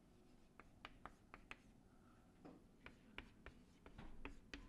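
Faint chalk on a chalkboard: a quick, uneven run of sharp taps and short scratches as letters are written.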